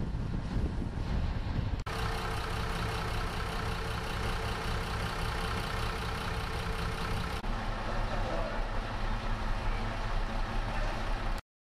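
FS ALn 663 railcar's underfloor diesel engines idling steadily while the railcar stands at the platform, with abrupt changes in tone at about two and seven seconds in, and the sound cutting off suddenly at the very end.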